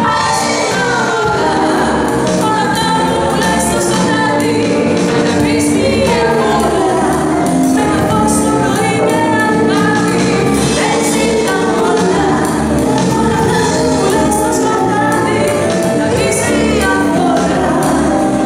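A live band playing an amplified pop-soul song, with a woman singing lead into a microphone over keyboards, electric guitar, bass and drums. The music is loud and steady, with a regular percussion beat.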